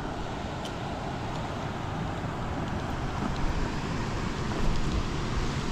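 Wind buffeting the camera microphone: an unsteady low flutter over a steady hiss.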